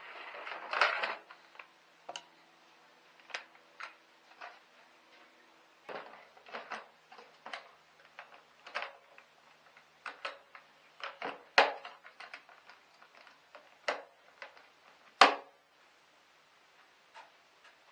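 Irregular clicks and knocks of plastic engine-bay covers and parts being handled and fitted back in place around a car's battery compartment. There is a rustling clatter about a second in and one sharp knock near the end.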